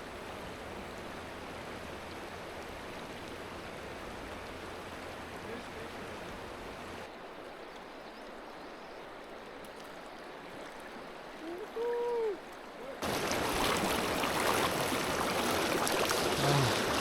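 Mountain river water running over rocks, a steady rushing noise. It drops abruptly to a quieter rush about seven seconds in, and comes back louder and brighter about thirteen seconds in. Just before it comes back there is a brief, short voice-like sound.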